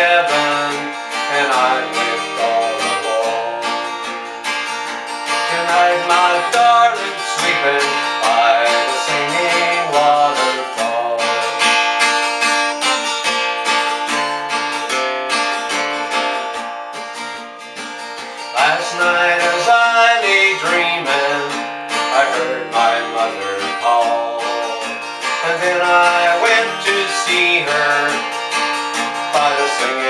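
Yamaha acoustic guitar strummed in a steady country-style accompaniment, with a man singing over it.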